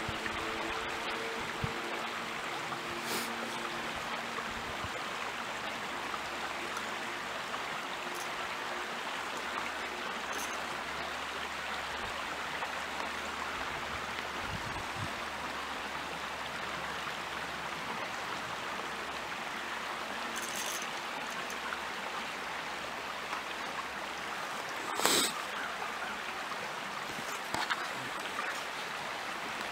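Steady rush of running stream water, with a few small clicks and one sharper click about 25 seconds in.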